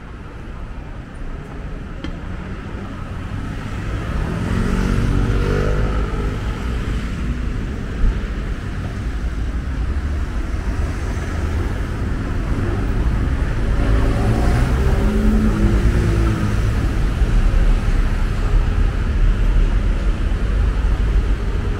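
City street traffic: cars driving through an intersection and passing close by, their engines and tyres over a steady low rumble. Two vehicles pass louder, with engine pitch shifting, and there is a short knock about 8 seconds in.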